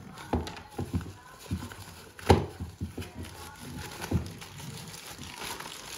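Irregular knocks and thumps of a tripod in a nylon carry bag being handled and set against a wooden floor, with light fabric rustling; the loudest knock comes a little past two seconds in.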